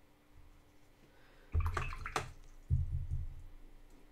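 Watercolour brush swished and tapped in a jar of rinse water: two splashy bursts with low knocks, about a second and a half in and again near three seconds, with a sharp click between them.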